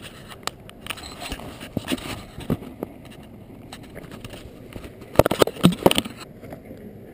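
Camera handling noise: scattered clicks and rubbing as the camera is moved about, then a loud burst of scraping and knocks about five seconds in as it comes to rest on gravelly dirt.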